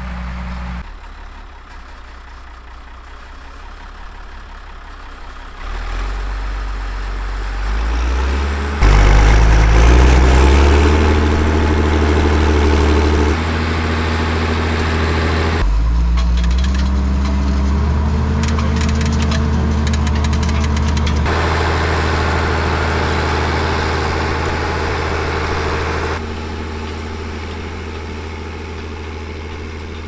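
Fiatagri 160-90 DT tractor's six-cylinder turbocharged 8.1-litre Fiat engine working under load, pulling a four-furrow plough. It revs up, rising in pitch, about six to nine seconds in, then runs loud and steady, with the loudness stepping up and down a few times.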